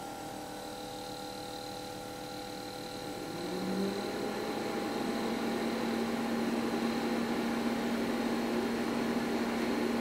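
Dometic CF11 portable compressor fridge/freezer starting up: the compressor kicks in with a steady hum of several pitches, which swells louder about three to four seconds in and then runs steadily.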